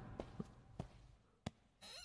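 Near silence, broken by four faint, sharp ticks or taps spread across two seconds, with a soft airy swish near the end.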